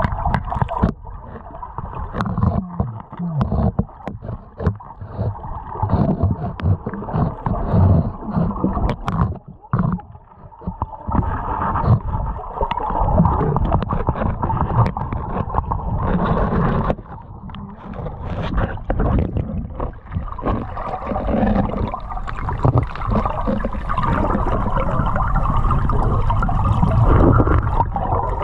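Muffled rush and gurgle of creek water heard through an underwater camera, with many scattered clicks and knocks of a steel pry bar and stones against bedrock. The rush drops away briefly twice.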